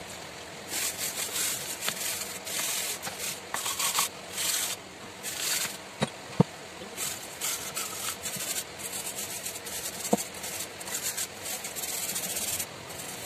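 Hand wire brush scrubbing rust off the steel casing of a pump motor in a run of short, uneven scraping strokes. Two sharp knocks cut in, the louder one about six seconds in.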